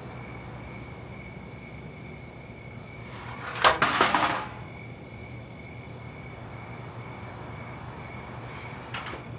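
A sudden loud rattling knock, about a second long, a few seconds in, with a smaller click near the end. Underneath, a steady background of faint repeating cricket-like chirps and a low hum.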